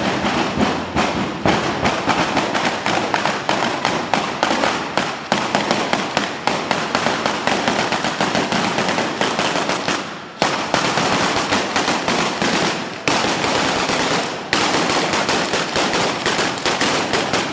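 A traca: a long string of firecrackers going off in rapid, continuous cracks, dipping briefly a couple of times.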